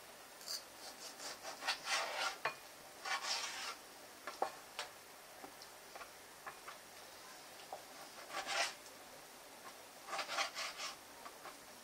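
Kitchen knife cutting raw chicken on a plastic cutting board: the blade scrapes through the meat and taps the board in short clusters of strokes, with quiet pauses between them.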